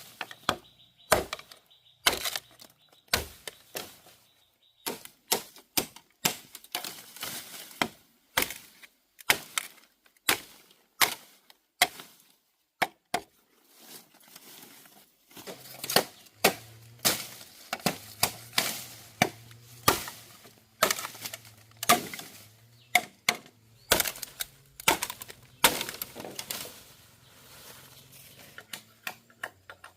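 Bamboo being chopped with a blade: sharp, irregular strikes about once a second, some in quick runs, with a short lull about halfway through.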